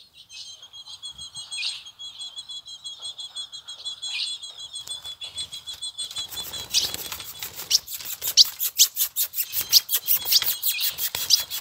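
Azulão (ultramarine grosbeak) calling: a fast run of short, high, repeated chip notes broken by louder down-slurred notes. From about six seconds in, a rapid series of sharp clicks joins the calls.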